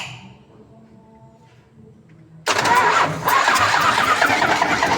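A sharp click, then about two and a half seconds in the Isuzu 10PE1 diesel truck engine is abruptly turned over on its starter, loud and dense. Its cylinder head is holed and lets water into the number 5 cylinder, the cause of its hard starting.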